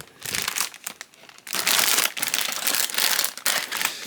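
Plastic bags holding model kit parts crinkling as they are handled, with a short lull about a second in before the crinkling picks up again.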